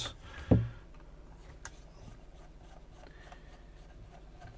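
A single knock of the camera body being handled about half a second in, then faint scraping and small clicks of a thin screwdriver working the screws of the microscope camera's plastic case.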